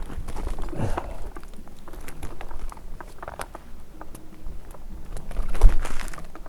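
Irregular knocks, scrapes and rustles of a tree climber moving on the trunk, with a heavy thump near the end.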